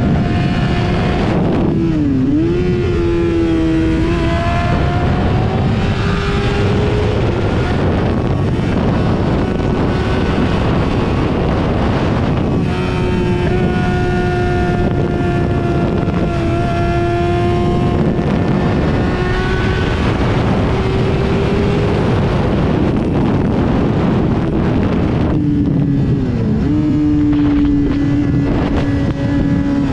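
Yamaha sport bike's engine running hard at high revs, under heavy wind noise on the microphone. The engine note dips sharply about two seconds in and again near the end, then climbs back as the throttle opens.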